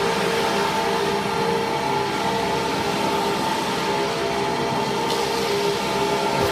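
Wood shaving production line machinery running steadily: a constant mechanical noise with a steady hum-like tone running through it.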